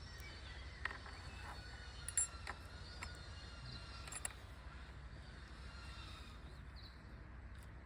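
A few light clicks and taps of bike headset parts being handled and set in place, over a faint hum with thin, high background chirping.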